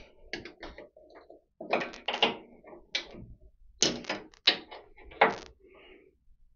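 Metal wrench clicking and clanking irregularly against a lathe's levelling jack bolt as it is turned to lower the machine.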